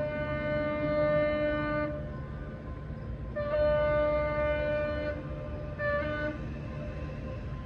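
Henschel AA22T diesel locomotive's horn sounding from the approaching train: a long blast ending about two seconds in, another long blast, then a short toot, over a low steady rumble.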